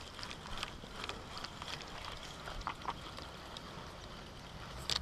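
Faint, irregular clicks and rustles from a spinning fishing reel being handled close to the microphone.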